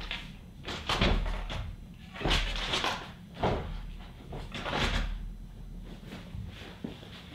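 A series of door sounds: a door being handled, opened and shut, about five knocks and scrapes a second or so apart.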